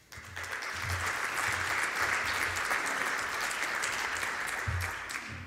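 A large seated audience applauding. The clapping swells within the first second, holds, and dies away near the end.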